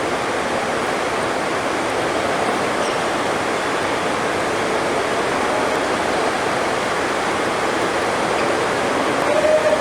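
Heavy rain drumming steadily on the sports hall's roof, a constant even hiss.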